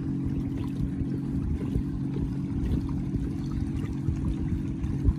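Water lapping and trickling against a kayak's hull, over a steady low hum, with one low bump near the end.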